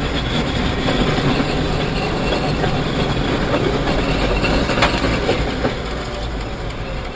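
Steady road and engine rumble of a moving car heard from inside its cabin, with one sharp click about five seconds in.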